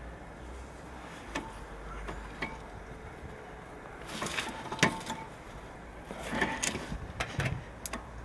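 Scattered metallic clicks and clinks of large slip-joint pliers being set on and squeezed across a VW Golf V front brake caliper to press the piston back, with one sharp click a little before five seconds in and a cluster of knocks near the end.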